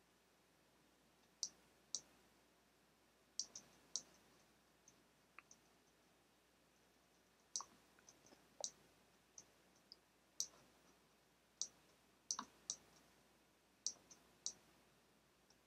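Faint, sparse clicks of a computer being clicked while shapes are selected and dragged, about twenty single or paired clicks at irregular intervals over near-silence.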